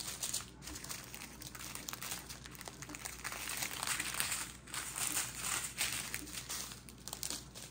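Small plastic bags of diamond-painting drills crinkling and rustling as they are handled and sorted through by hand, in many small irregular crackles.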